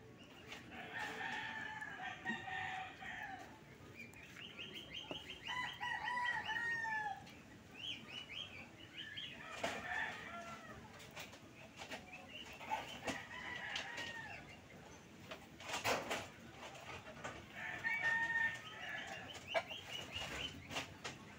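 Roosters crowing over and over, a long call every few seconds, with a sharp knock once about two-thirds of the way through.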